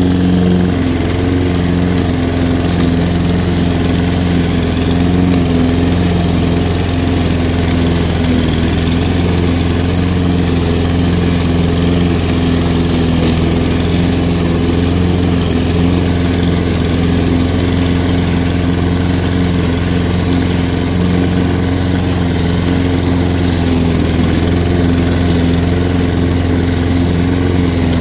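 Toro 21321 self-propelled mower's Briggs & Stratton 140cc engine running steadily while the mower cuts through thick, deep, long-uncut grass.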